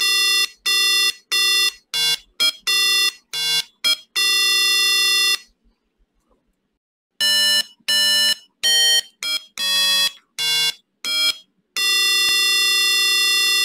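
Homemade Arduino-based stylophone (the StyloDuino) playing a run of electronic notes through its small speaker as the stylus touches the PCB keys. Short notes change pitch, then stop for about two seconds midway, then come again, ending on one long held note.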